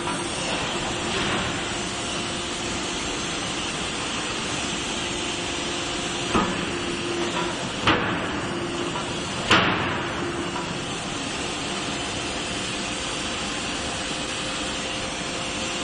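3-ton CNC-converted hydraulic die forging hammer striking hot steel: three sharp blows about a second and a half apart, from about six seconds in, the last the loudest with a short ring. They sit over a steady hum and hiss of shop machinery.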